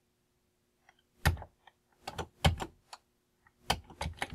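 Keys on a Commodore computer's keyboard being pressed, a handful of scattered clacks starting about a second in and bunching up near the end.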